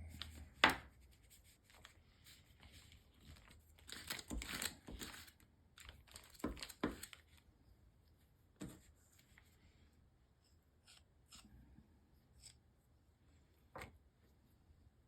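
Small bench-work handling noises: a few light clicks and taps, and a rustling scrape about four to five seconds in, as a fine screwdriver works JB Weld epoxy into a plastic latch.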